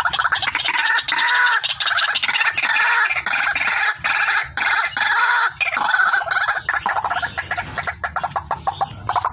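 White-breasted waterhen (ruak-ruak) calling: a fast run of harsh, repeated croaking notes broken by a few short pauses, the call of a female used as a trapping lure.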